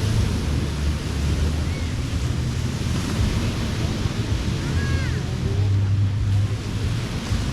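Ocean surf washing onto a sandy beach as a steady rush, with wind buffeting the microphone as a low rumble.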